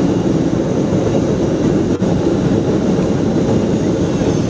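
Steady low rumble of a vehicle in motion, heard from inside its cabin.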